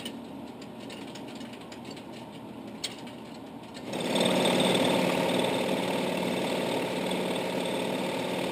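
Boeing 737-800 stick shaker kicking in about four seconds in: a loud, rapid rattle from the control column that keeps going, the warning that the wing is close to the stall. Before it, steady cockpit background noise with a couple of clicks.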